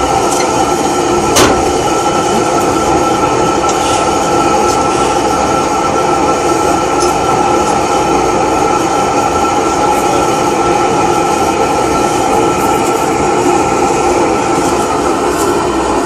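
Blue-flame gas blowtorch burning steadily, a loud even rush, as it preheats the hot bulb of a 1940 Lanz Bulldog's single-cylinder engine for starting. A single sharp knock comes about a second and a half in.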